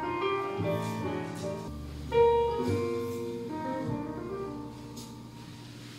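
Instrumental background music, a melody of changing notes, with a louder accented note about two seconds in.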